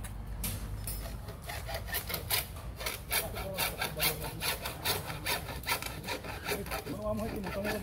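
Hand hacksaw cutting across a white roofing panel, in quick, even back-and-forth strokes of about three a second.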